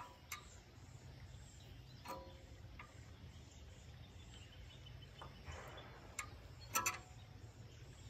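Metal wrench clicking and tapping on the temperature sensor of a small two-cylinder diesel engine as the sensor is loosened. There are a few scattered faint clicks, with a louder pair about two thirds of the way in, over a low steady background rumble.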